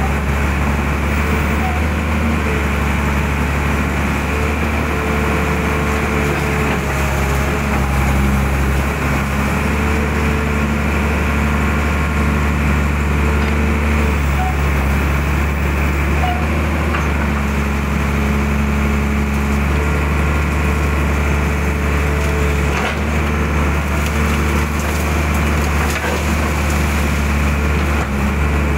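Mitsubishi excavator's diesel engine running steadily under working load, with hydraulic whines that come and go every few seconds as the boom and bucket are moved. A few light knocks in the later part as the bucket scrapes mud and pushes through palm fronds.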